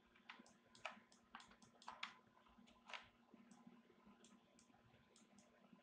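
Near silence broken by a dozen or more faint, irregularly spaced clicks from a computer mouse and keyboard, over a low steady hum.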